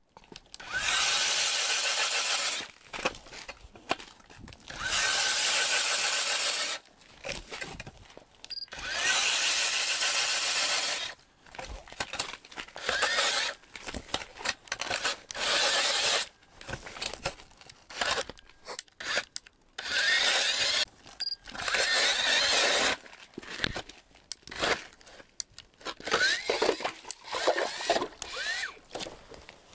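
Drill-powered ice auger spinning in a hole in the lake ice, run in repeated bursts of one to three seconds with a brief rising whine as the motor spins up. Near the end come irregular crunching and scraping sounds of slush and ice.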